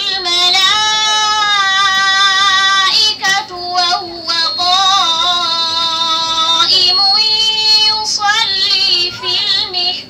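A girl's voice reciting the Qur'an in the melodic, chanted tajweed style, with long held notes and ornamented turns, broken by short pauses for breath.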